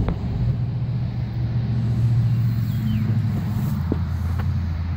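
Steady low mechanical hum, like a running engine or motor, with a few light clicks.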